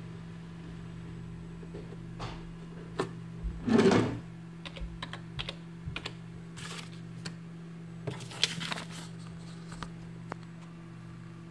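Computer keyboard keys tapped in short, scattered runs, with a louder knock about four seconds in, over a steady low hum.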